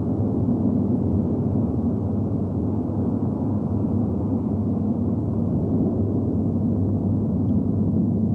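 Steady low rumbling drone with a faint hum in it, an added ambient sound-design bed.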